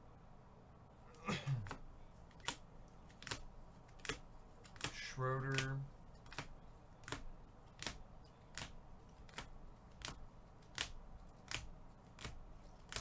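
A steady series of sharp clicks, about one every 0.8 seconds, starting a couple of seconds in, with a short falling squeak about a second in.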